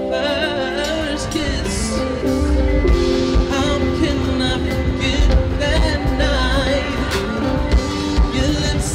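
A rock-and-roll song with a singer over a band.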